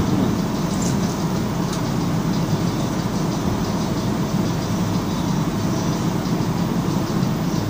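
Steady low hum and rumble inside an AZUR metro train car standing at a station platform.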